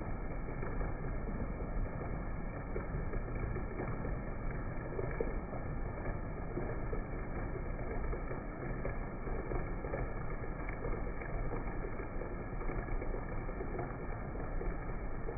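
Heavy rain falling steadily, a continuous muffled hiss and patter without sharp highs.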